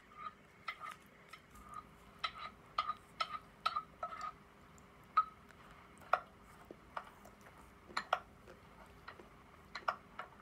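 A plastic spoon tapping and scraping in a plastic yogurt cup while eating: a string of irregular light clicks, about a dozen.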